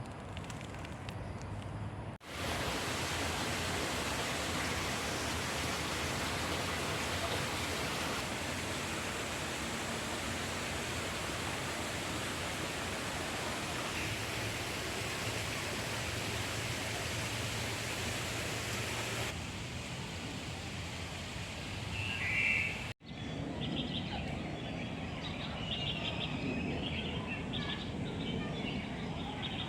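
A steady, even rushing noise that starts and stops abruptly at cuts, followed near the end by small birds chirping over quieter outdoor background.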